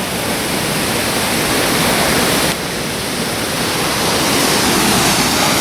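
Mountain stream rushing over rocks, a loud, steady hiss of water with a brief slight dip about halfway through.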